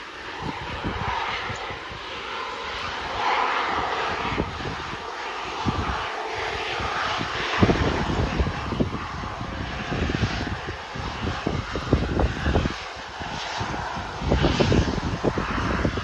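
Business jet's turbofan engines running as it rolls along the runway, a steady rushing whine that swells and eases. Gusty wind buffets the microphone throughout.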